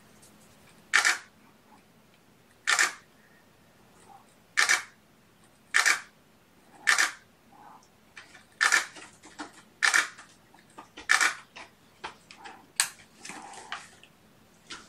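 Digital SLR camera shutter firing single shots, about nine in all, one every second or two, each a sharp mechanical clack. Fainter handling clicks follow near the end.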